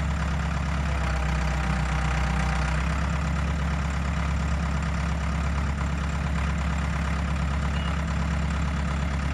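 Ford 655 backhoe's diesel engine running steadily at low revs.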